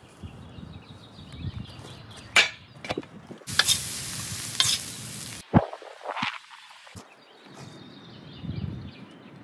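Minced meat and vegetables sizzling in a hot pan as they are stirred, loudest for about two seconds near the middle and stopping suddenly. Around it are quieter scraping and handling sounds of food being prepared, with a few sharp clicks.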